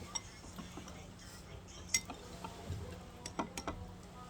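Eating utensils clinking against plates and bowls at a meal: a few sharp clinks, the loudest about two seconds in, then a quick run of several more around three and a half seconds in.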